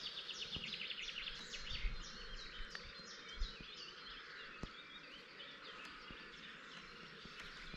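Dawn chorus of small birds: many short, high chirps and a rapid trill repeating throughout, over a faint steady outdoor background, with a few faint clicks.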